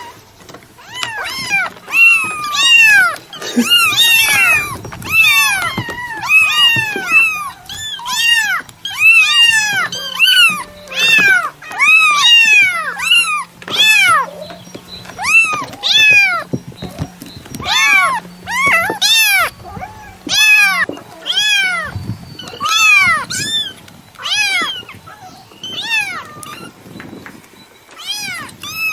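Domestic cat meowing over and over: short meows that rise and then fall in pitch, about one a second.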